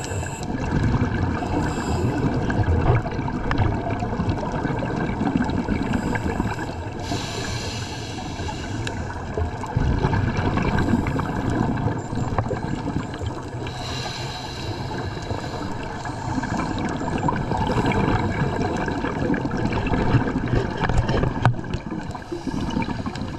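Underwater sound recorded through a GoPro's waterproof housing: a steady muffled rumble and gurgle of water moving past the camera, with a brighter hiss every seven seconds or so.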